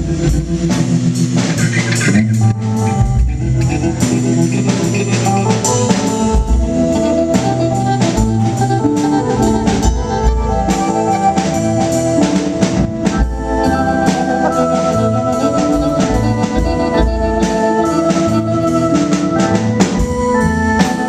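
Live rock band playing an instrumental passage: held organ chords over a steady drum-kit beat with regular cymbal strikes, in a poor-quality recording.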